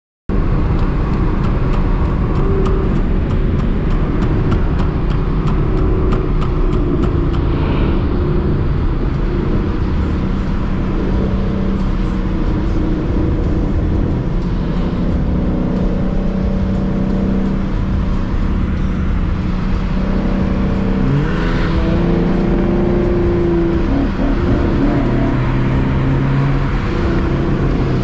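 Ford Mustang's engine and exhaust droning steadily from inside the cabin at highway speed, mixed with road noise. About three quarters of the way through, the engine note rises and shifts as it revs.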